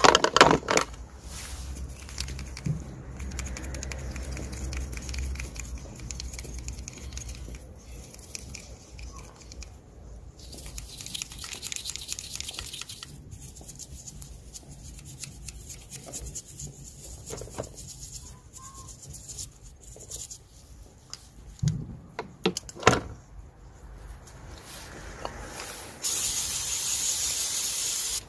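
Aerosol EGR valve cleaner hissing as it is sprayed onto a sooty diesel EGR valve: a short burst about a third of the way in, and a loud, steady spray near the end. In between, the knocks and scrapes of the metal valve being handled over a plastic tub.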